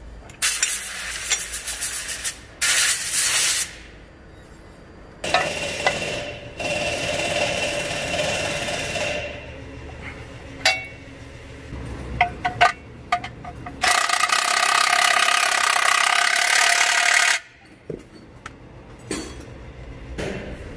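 Socket wrench working a drain bolt under a tractor's oil pan, with bursts of rapid rattling clicks, metal scrapes and a few sharp clanks. A few seconds of steady loud noise come about two-thirds of the way through.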